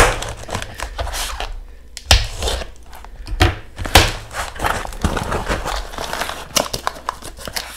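Packing tape being slit with a knife and peeled off a foam protective tube, then the foam sleeve being pulled open around a glass bottle: irregular rustling and crinkling with scattered clicks and knocks, the loudest about two and four seconds in.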